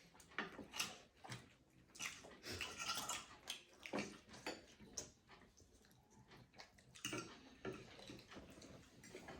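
Faint eating sounds: irregular soft clicks and smacks of chewing, with light taps of utensils on dishes.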